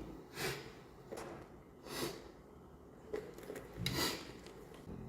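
A person sniffling: several short, sharp intakes of air through the nose, roughly two seconds apart.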